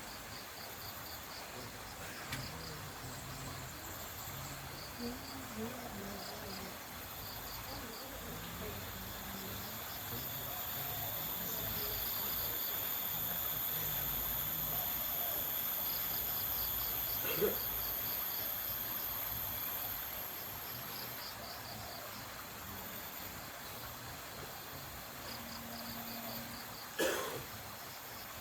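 Insects calling: crickets chirp in short repeated groups of pulses, over a steady very high-pitched insect buzz that swells through the middle. Faint distant voices sound underneath, and there are two sharp knocks near the end.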